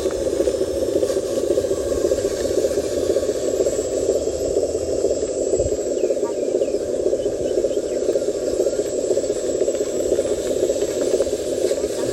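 Small electric motor and gearbox of a radio-controlled truck running steadily, a continuous busy drone, with one brief low thump partway through.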